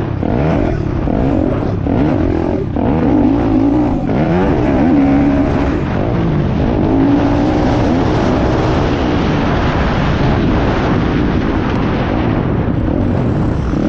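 Piranha P190 pit bike's single-cylinder four-stroke engine revving hard while ridden, its pitch climbing and dropping again and again as the rider shifts and rolls on and off the throttle, with wind rushing over the helmet microphone.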